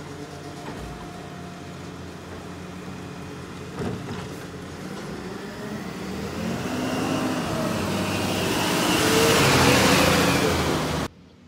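Side-loader garbage truck engine running while its lifting arm empties a wheelie bin, with a single bang about four seconds in. The truck then drives up and passes close by, getting steadily louder with a hiss, and the sound cuts off suddenly near the end.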